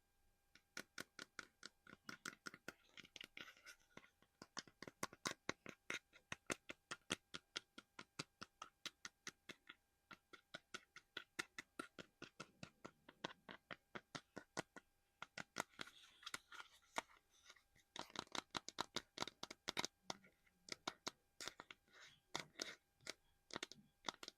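Close-up ASMR tapping on a small hard collectible, a quick run of sharp taps several a second. About halfway through there is a softer stretch of scratching or rubbing before the taps pick up again.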